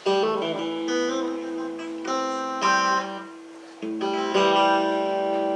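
Guitar playing an introduction: a handful of chords struck one after another and left to ring.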